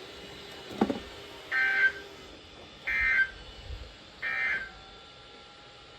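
EAS (Specific Area Message Encoding) end-of-message data signal on a NOAA Weather Radio broadcast: three short bursts of warbling two-tone data about a second apart, marking the end of the alert message. A short blip comes shortly before the first burst.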